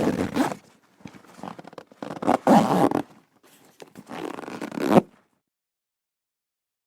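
A zipper being pulled in a series of rasping strokes of varying length, some short, some about a second long, over the first five seconds, the last ending abruptly.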